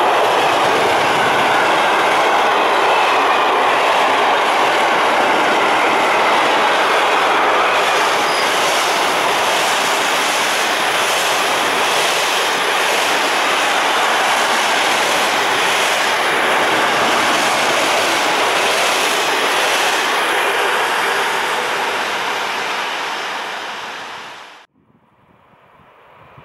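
Container freight train's wagons rolling past close by: a loud, steady rumble and rattle of steel wheels on rail with faint repeated clicks. It cuts off abruptly near the end, leaving a much quieter background.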